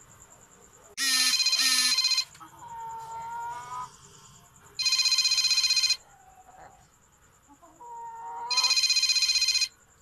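A phone ringtone rings three times. Each loud, fast-trilling ring lasts just over a second, with about three and a half seconds between them. Fainter chicken calls are heard between the rings.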